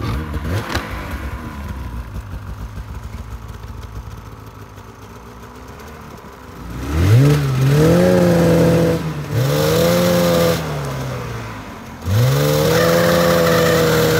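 Polaris RMK Khaos snowmobile's two-stroke engine idling, then revved three times with its exhaust outlet blocked by a hand. Each rev rises quickly and then flattens at a steady pitch: the engine bogs and struggles to make over 5,000 rpm, the same powder bog that snow or debris plugging the stock exhaust causes.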